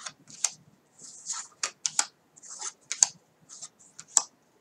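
Tarot cards being laid one at a time from one stack onto another: irregular light snaps and slides of card stock, about two or three a second.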